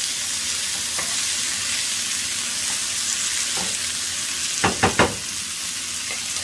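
Green beans, mushrooms and chopped garlic sizzling steadily in a nonstick frying pan while being stirred with a wooden spoon. Three quick knocks come close together a little under five seconds in.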